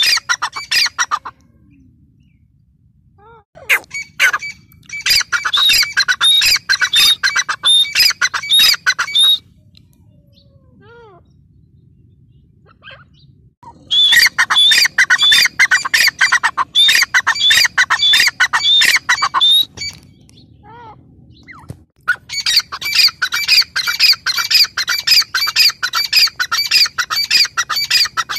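Grey francolin calling: long bouts of rapid, repeated high-pitched notes lasting several seconds each, broken by short pauses with a few single calls.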